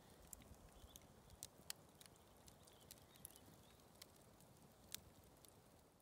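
Faint crackling of a wood campfire, with scattered sharp pops, the loudest a little under two seconds in and again near the end.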